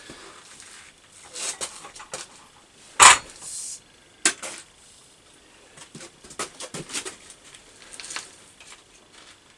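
Scattered metallic clinks and knocks from a hand tube bender as a motorcycle frame tube is bent a little at a time, with one loud clank about three seconds in.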